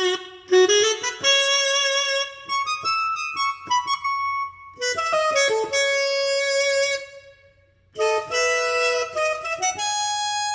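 Yamaha PSR-S970 arranger keyboard playing a single-note melody on one of its reed-instrument voices, saxophone-like, in short phrases with a brief pause about three-quarters of the way through.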